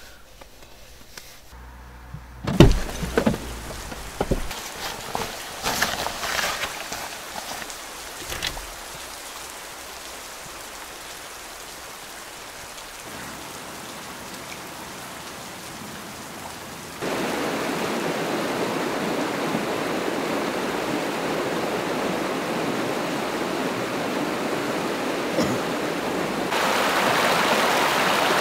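A few knocks and rustles, then a soft, steady wash of outdoor noise. About two-thirds of the way in it gives way suddenly to a shallow, rocky river rushing over stones, a steady rush that gets louder near the end.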